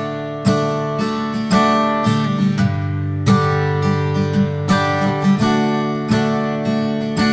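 Background music of acoustic guitar, chords strummed and plucked in a steady rhythm.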